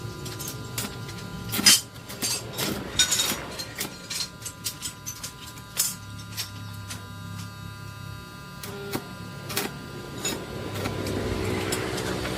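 Irregular sharp knocks and clicks, a few louder near the start and middle, over a steady low hum.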